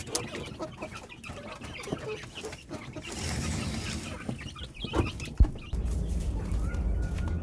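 Domestic chickens clucking, with a sharp knock a little over five seconds in, then a steady low rumble near the end.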